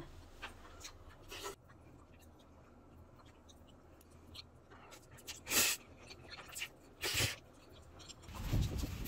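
Light clicks and scrapes of a wooden spoon and chopsticks against a bowl of mixed rice and noodles during eating, with two short, louder noisy rushes about five and a half and seven seconds in. A louder rustling noise builds near the end.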